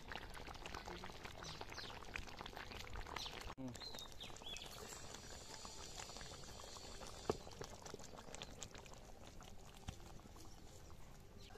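Fish curry simmering in a steel kadai, bubbling and crackling, with a lone sharp knock about seven seconds in. Short chirps of birds come and go behind it.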